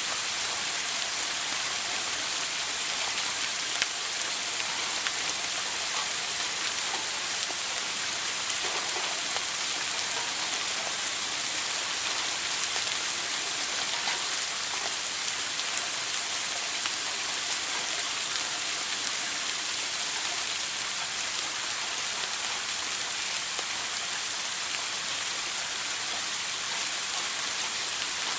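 Shower running: a steady hiss of spraying water, with a few slightly louder splashes now and then.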